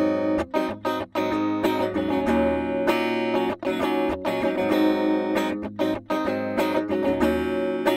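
Schecter V-1 Hellraiser FR electric guitar with EMG 81/89 pickups, played through a clean tone on both pickups together. Chords are strummed and picked and left to ring, with brief breaks where the chords change.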